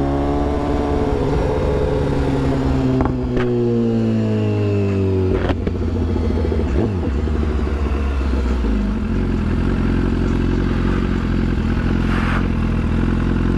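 BMW S1000RR inline-four sport-bike engine running as the bike rides. Its note holds, then falls in pitch over a couple of seconds as the bike slows, with two sharp clicks about three and five and a half seconds in. After that it settles to a low, steady note at low speed.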